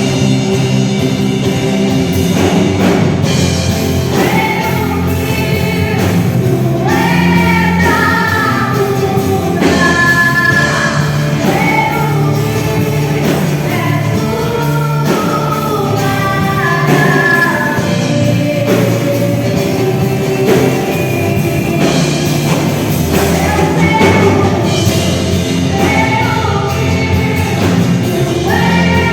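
A live worship band playing, with a lead vocalist singing over a full band with drums.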